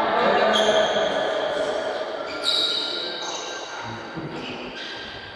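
Badminton doubles rally in an echoing hall: several short, high squeaks of players' shoes on the court floor, with racket hits on the shuttlecock and faint voices.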